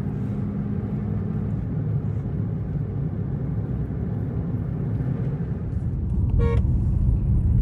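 Steady low road and engine rumble inside a moving car's cabin. About six seconds in, a short horn beep sounds and the rumble grows a little louder.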